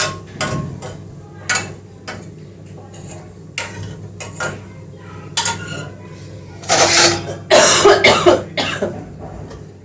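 A metal spoon clinking against a cooking pot several times, then two loud coughs about seven and eight seconds in, from a person with a cold.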